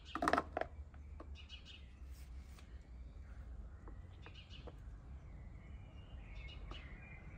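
Chunks of raw meat and bone tipped from a small cup onto a terracotta saucer, a brief rattle about half a second in. Faint birdsong chirps on and off.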